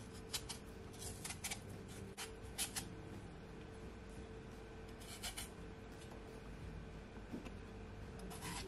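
Chef's knife shaving the skin off a raw potato held in the hand: faint, irregular scraping cuts, a few in quick succession at a time, over a faint steady hum.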